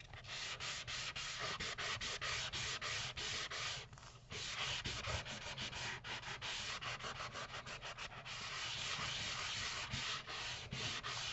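Coarse side of a nail-file buffer block sanding a shiny plastic folder cover in quick back-and-forth strokes, several a second, with a short pause about four seconds in; the glossy surface is being scuffed dull so glue will stick.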